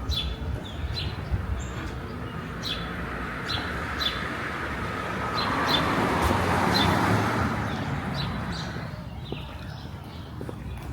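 Street ambience: a car passes, rising to its loudest about six to seven seconds in and then fading, over a run of short, sharp chirps at irregular intervals.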